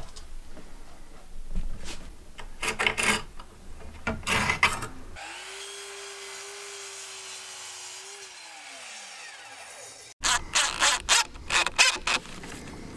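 A power tool's electric motor runs at a steady pitch for about three seconds, then winds down to a stop over about two seconds. Short knocks and clicks of woodworking come before it and, after a cut, again near the end.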